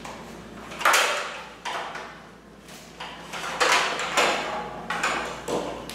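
Handling noises as plugs are worked in a ceiling outlet: a string of about six sharp knocks and scrapes, the loudest about a second in and again around four seconds in.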